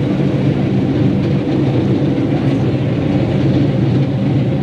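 Vaporetto waterbus engine running steadily under way, a low drone, with water rushing and splashing past the hull.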